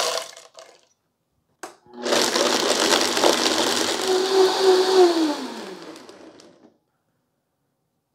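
Countertop blender blending roasted, brown-sugared diced apple. A click, then the motor runs loud and steady for about three seconds before winding down with a falling pitch as it is switched off.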